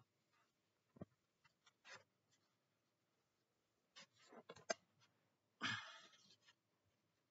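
Near silence broken by a few faint clicks and knocks, a sharper click about four and a half seconds in, then a short rustle: handling noise from the camera being adjusted.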